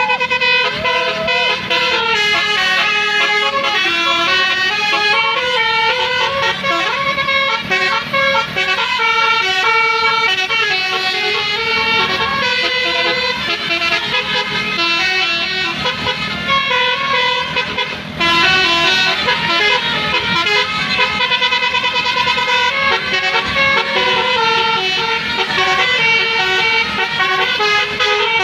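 Basuri telolet bus horn, a multi-trumpet musical air horn, playing a tune of stepped notes with several tones sounding at once, almost without pause; it breaks off briefly about 18 seconds in.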